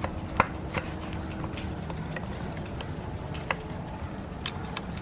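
Scattered small metal clicks and taps as a tool loosens the screws of the guard clamp on a Black and Decker 4½-inch angle grinder, over a steady low background hum.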